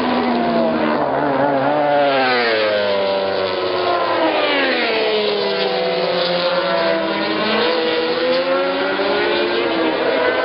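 Several racing motorcycle engines at high revs, their notes overlapping; the pitch falls as they slow for the corner and climbs again as they accelerate away, more than once.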